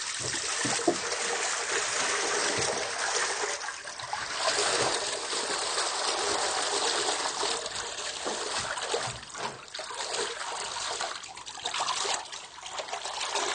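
Water gushing up through an open through-hull hole in a yacht's hull and splashing over hands working in the flooded bilge. It runs continuously, swelling and easing as the hands move in the jet.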